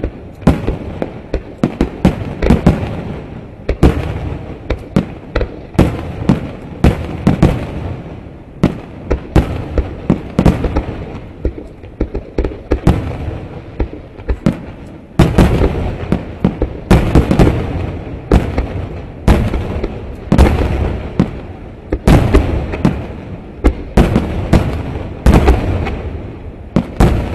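Fireworks display: aerial shells bursting in rapid volleys, several sharp bangs a second over a continuous rumble. The barrage turns denser and louder a little past halfway.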